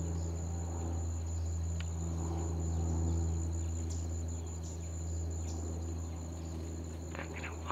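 Steady high-pitched insect drone, like crickets, over a low steady hum, with a few faint clicks.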